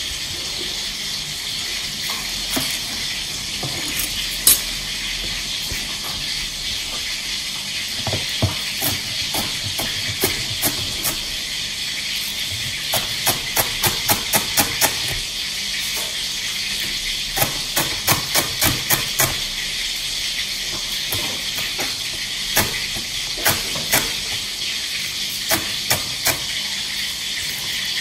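Cleaver chopping spring onions on a plastic cutting board in runs of quick knocks, about four a second at the fastest, over a steady sizzle of fish frying in hot oil.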